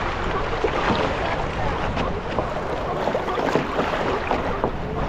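Wind buffeting the microphone over water splashing around a kayak on the open sea.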